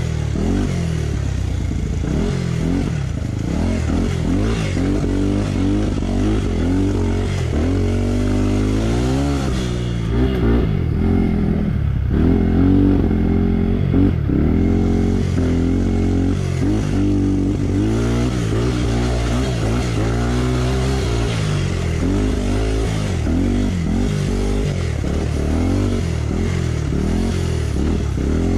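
Trail motorcycle engine running and revving, its pitch rising and falling again and again as the throttle is worked.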